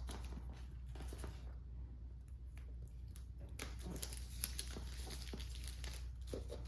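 Plastic shrink wrap being peeled and crinkled off a cardboard box: scattered rustling and crackling, with a sharp click about four and a half seconds in.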